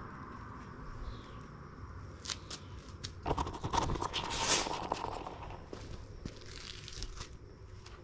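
Lost-foam casting pour: molten aluminum bronze meets the buried foam pattern, which burns out with irregular crackling clicks and a rush of hiss as flames flare from the sprue. The crackle is thickest and loudest in the middle, then thins out.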